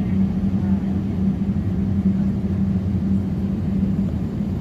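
Steady low drone inside the cabin of an Airbus A319 waiting at the gate before pushback, the hum of its air conditioning and ventilation, with a constant deep tone.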